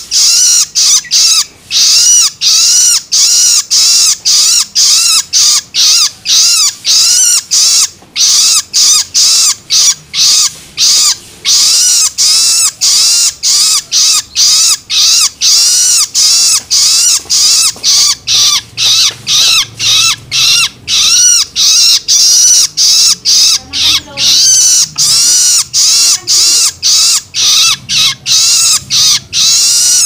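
Juvenile long-tailed shrike (cendet) giving its loud, harsh begging calls (loloan) over and over, about two a second. Each call is a short screech that rises and falls in pitch. These are the food-begging calls of a young bird asking to be fed.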